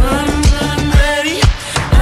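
Background music with a steady beat of about two loud kicks a second under a gliding melody line.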